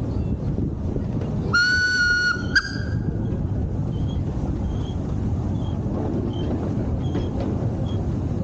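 Steam locomotive whistle blown about a second and a half in, one steady note lasting just under a second, followed at once by a short second toot. Under it runs the low steady rumble of the train moving along the track.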